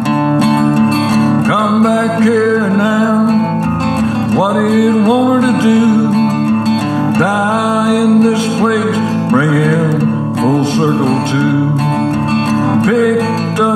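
Instrumental break of a country rock song: strummed acoustic guitar carrying a steady accompaniment, with a melody line above it that slides and bends up into its notes every second or two.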